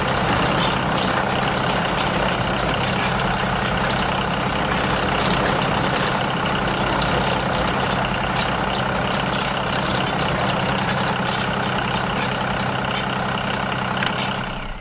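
Small motor of a DIY model tractor running steadily, spinning a rotary broom head so its straw bristles scrape over the road surface, with a sharp click near the end.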